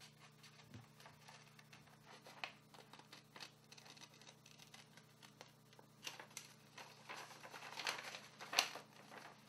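Scissors snipping through a sheet of paper, a series of faint short cuts with the paper rustling between them, the snips coming closer together and louder in the second half. A faint steady low hum sits underneath.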